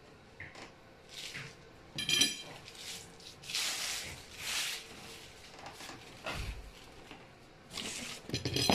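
Metal poles of a wire shelving unit being handled: a ringing metallic clink about two seconds in and another near the end, with rubbing and swishing of the poles between them and a dull knock.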